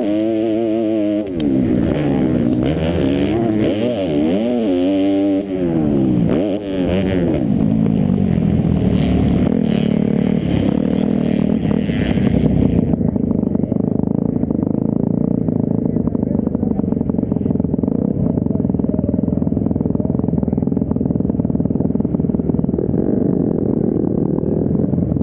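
Motocross bike engine heard onboard, revving up and down with rising and falling pitch as it is ridden round the track. About 13 s in the sound changes abruptly to a steadier, duller engine drone with no treble.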